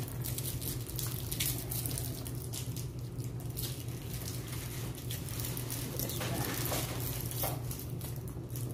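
Cellophane wrappers on cinnamon disc hard candies crinkling in scattered small clicks and crackles as they are unwrapped, over a steady low hum.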